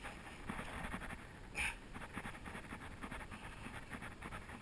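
Fishing reel being cranked to bring in a hooked fish, a faint fast ticking of the reel, with one brief louder hiss about one and a half seconds in.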